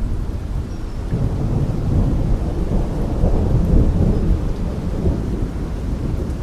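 Rolling thunder rumbling over rain; the rumble swells from about a second in, is loudest around the middle, and eases off near the end.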